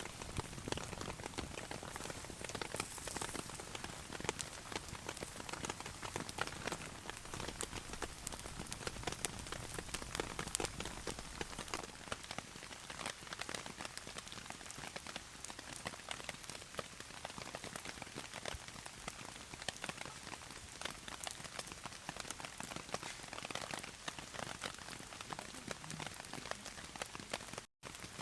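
Heavy rain falling steadily, with many separate drops striking a DD Tarp 3×3 overhead.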